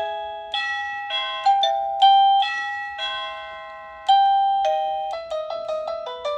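Plug-in wireless doorbell receiver playing its electronic chime tunes, a series of bell-like notes each struck and slowly fading. From about five seconds in the notes come quicker and shorter, a different tune as the unit steps to its next chime tone.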